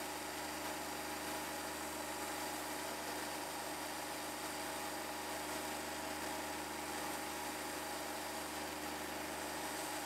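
Wood-Mizer portable band sawmill running steadily, its engine and band blade making an even mechanical hum with several held tones as the blade works into a hardwood log.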